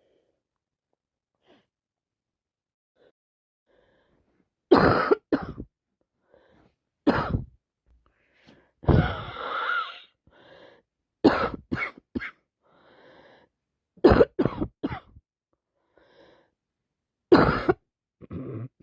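A woman with a heavy cold coughing in short fits of one to three coughs, with throat clearing, starting about five seconds in. Near the middle comes one longer, breathier burst.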